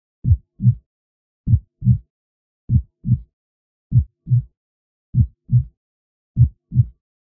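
Heartbeat sound: slow pairs of low 'lub-dub' thumps, a pair about every second and a quarter, with silence between.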